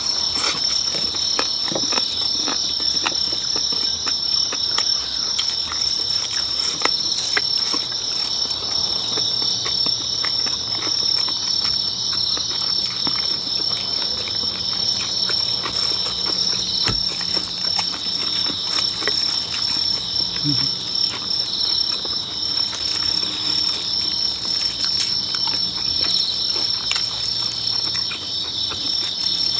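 Steady, high-pitched chorus of night insects trilling, with scattered small clicks and chewing from people eating.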